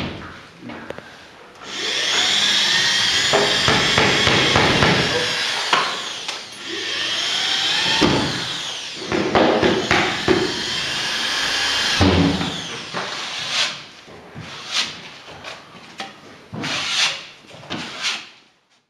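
Handheld power drill run against a wall board, its motor whining up and down in long runs over the first twelve seconds or so. After that come shorter bursts and knocks.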